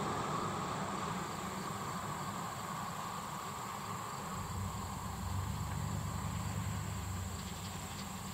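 Low, steady rumble of a BNSF manifest freight train out of sight, easing off and then swelling again about halfway through, with a thin, steady high insect buzz over it.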